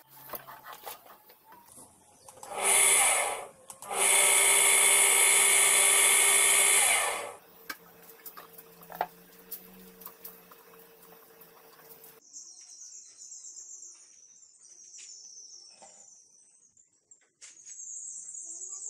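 An electric power tool's motor runs in two spurts: a short one, then a steady run of about three seconds that stops abruptly. A faint hum follows, and light background music comes in about two-thirds of the way through.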